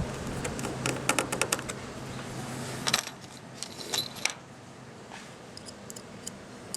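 Small screws and a screwdriver clicking and clinking against a radio's plastic case and circuit board as the screws are put in, with a cluster of quick clicks early on and a few more later. A steady low hum runs underneath and stops about three seconds in.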